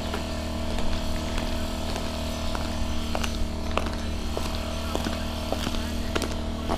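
A steady, even engine hum from a running motor, unchanging throughout, with scattered sharp clicks and ticks over it.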